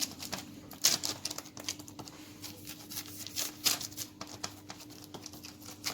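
Hands patting and pressing a log of soft biscuit dough on a baking tray, making irregular soft taps and light rustles, with a few sharper ticks about a second in and near the end.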